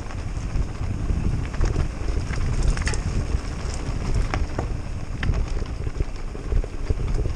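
Mountain bike rolling over a loose, rocky gravel track: tyres crunching and scattered clicks and rattles from stones and the bike, under a heavy rumble of wind buffeting the microphone.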